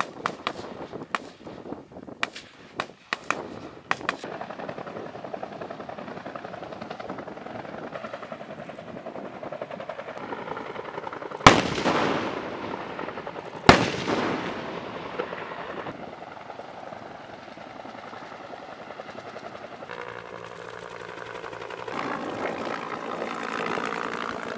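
Military live-fire gunfire: a string of sharp single shots in the first few seconds, then a steady fast-beating mechanical noise. About halfway through come two heavy blasts about two seconds apart, each ringing off in a long rumble, then steady engine-like noise that swells near the end.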